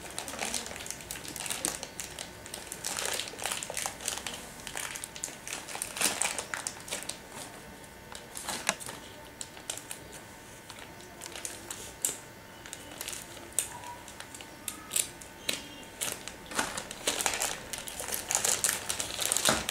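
Clear plastic shrink-wrap around a stack of Play-Doh cans crinkling and crackling as it is handled and opened, in irregular crackles.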